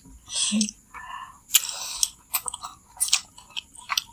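Mie ayam chicken noodles slurped and chewed up close: a few hissing slurps in the first two seconds, then wet chewing with short, sharp smacking clicks.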